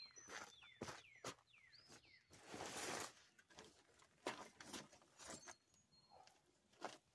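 Faint rustling of a nylon backpacking tent being collapsed and folded, with scattered light clicks and footsteps on wood chips, and a longer burst of rustling about two and a half seconds in. A bird gives a run of four short falling chirps in the first two seconds.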